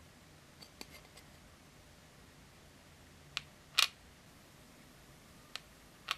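Small plastic clicks and taps as miniature food pieces are set down on a tiny plastic toy tray. A few faint ticks come about a second in, a sharp click and then the loudest double click come near the middle, and two more clicks come near the end.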